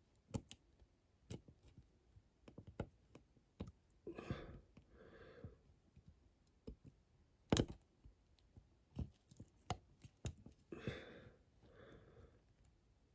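Small irregular clicks and taps of a flat metal blade tool against a die-cast toy car body as thin plates are pressed into place. One click about halfway through is louder than the rest, and there are two brief soft rustles.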